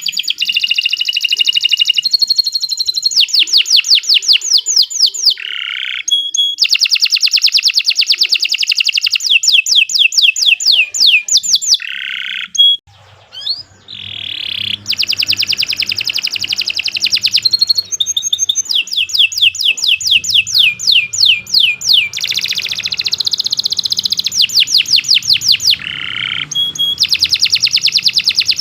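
Domestic canary singing a long, continuous song of fast rolling trills, switching between different repeated phrases every second or two, with a brief pause about 13 seconds in.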